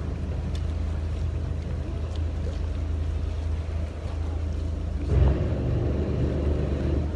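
Boat engine running steadily with a low hum, heard from on board over a light rush of wind and water. About five seconds in there is a brief louder surge of noise.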